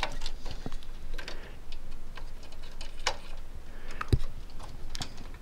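Irregular small plastic clicks and taps of hands working a DDR3 memory stick into a motherboard slot inside a desktop PC case, where it is not going in easily. There is a duller knock about four seconds in.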